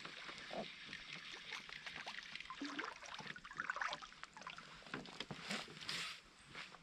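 Water splashing and trickling close by, with many small knocks and clicks of handling.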